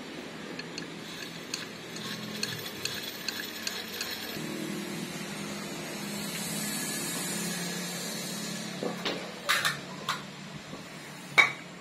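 Steady machine hum, with metal parts and tools clinking: a few sharp metallic knocks near the end, the loudest just before the end.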